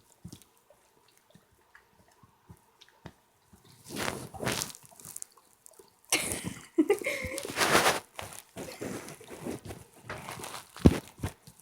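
A dog licking and smacking its lips, working sticky peanut butter off its nose: wet lapping sounds in a few bouts, with a short thump near the end.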